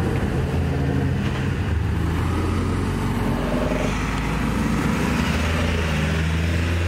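Modified cars driving slowly past, their engines running with a low, steady drone.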